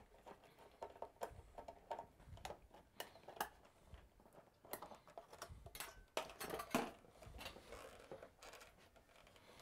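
Faint, scattered small clicks and light metal taps. A screwdriver is backing out the screw of the electrical junction-box cover plate on top of an electric water heater's sheet-metal tank, and the cover plate and its wires are being handled.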